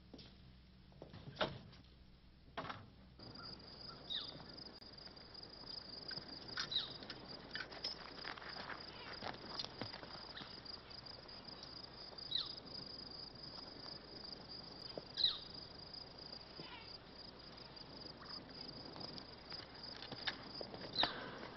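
A few knocks, then from about three seconds in a steady high cricket trill that keeps going, with an occasional short higher chirp over it.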